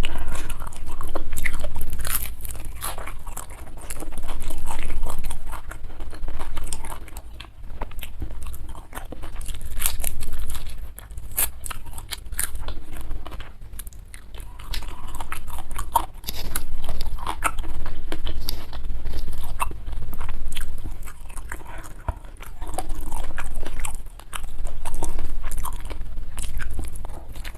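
Close-miked mouth sounds of a person chewing and crunching food, with wet crisp clicks swelling and fading every two seconds or so.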